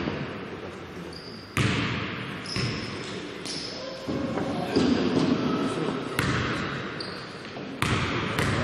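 A basketball bouncing on an indoor court, about half a dozen irregular bounces, each echoing in the hall, with short high squeaks between them.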